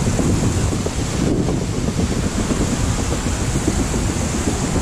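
Steady rumbling noise with a hiss above it.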